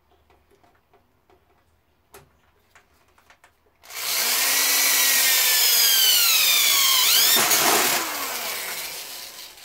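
Corded electric drill boring a hole through an aluminum sheet. After a few light handling clicks the drill starts suddenly about four seconds in with a loud whine whose pitch sinks as the bit bites into the metal, then it eases off and winds down near the end.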